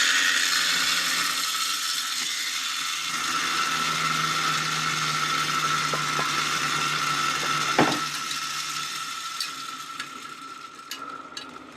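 The exposed gear-and-ratchet mechanism of a Vanguard V210-25FT vintage fire alarm bell running on its own: a fast, steady ratcheting whir with a held tone. There is one sharp click about eight seconds in, and the sound fades gradually over the last few seconds.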